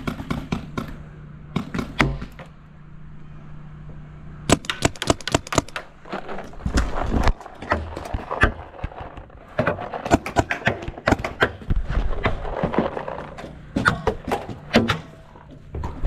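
Paintball markers firing in bursts of rapid sharp shots, several a second, with short pauses between bursts.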